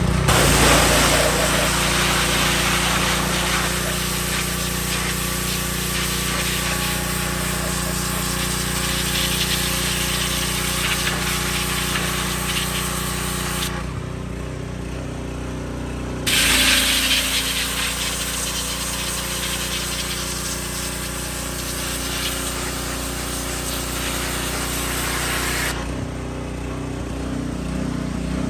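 Pressure washer spraying into a car's engine bay: a loud, steady hiss of the water jet over the hum of the washer's motor. The spray stops twice, for a couple of seconds each time, while the motor keeps running.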